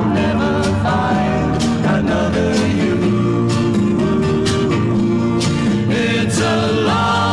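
Recorded folk-pop song: a lead voice singing over strummed guitar and a steady beat.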